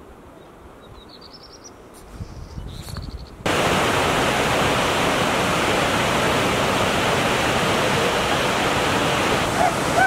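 Quiet outdoor background with a few short high chirps, then about three and a half seconds in a sudden switch to the loud, steady rush of a white-water mountain stream pouring over rocks.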